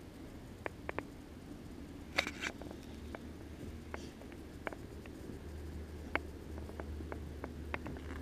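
A pack of dogs moving about on a dirt forest floor: scattered light clicks and ticks, with a brief scratchy rustle about two seconds in, over a low steady rumble.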